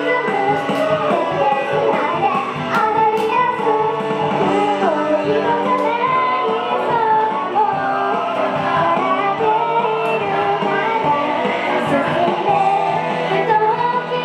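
Young girls singing a J-pop idol song in unison into handheld microphones over upbeat backing music.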